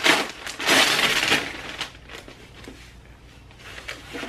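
Packaging crinkling and rustling as clothes are taken out of a subscription box. There is a loud burst at the start and a longer one over the first second and a half, then lighter rustles.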